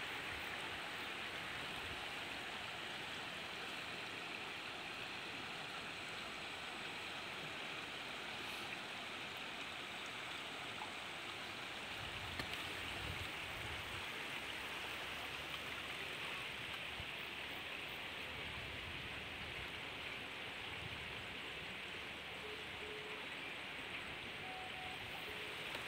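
Steady, even hiss of running floodwater and rain.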